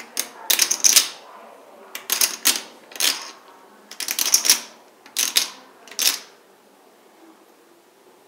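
14-gram Monte Carlo ceramic poker chips clacking against each other as stacks are lifted from the pile and set back, in about seven short bursts of rapid clicking that stop about six seconds in.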